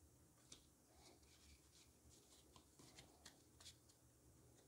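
Faint soft clicks and rustles of Pokémon trading cards being handled and squared up in the hand, a few light taps scattered through.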